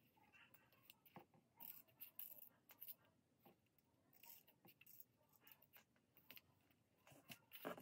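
Faint snips of scissors cutting through paper, a series of short cuts spaced unevenly, with light paper handling in between.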